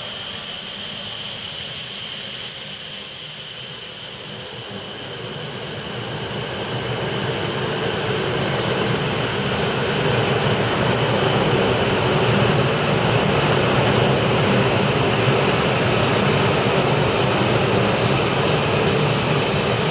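E5 series Shinkansen train running into the station and slowing to a stop: a steady high-pitched whine over the rush of the train, with the rumble of wheels on rails growing as the cars pass.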